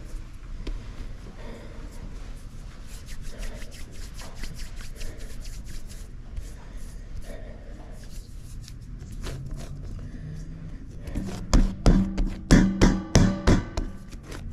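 Hands working pizza dough on a work surface, with soft rubbing and scraping, then a quick run of loud knocks over the last three seconds or so.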